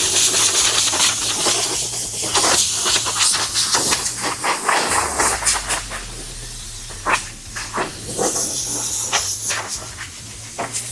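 Compressed-air blow gun hissing as it blows sanding dust off a freshly scuffed plastic car bumper. It gives long blasts at first, then shorter, quieter bursts in the second half.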